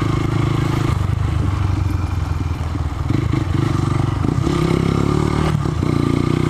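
Honda commuter motorcycle's single-cylinder engine running under way, heard from the rider's seat, its engine speed rising and falling several times as the bike slows and turns.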